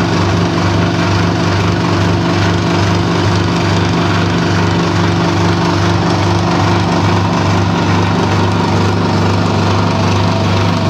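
Small flat-die feed pellet mill and its electric drive motor running while extruding pellets: a steady low mechanical hum with a regular throb, a couple of beats a second.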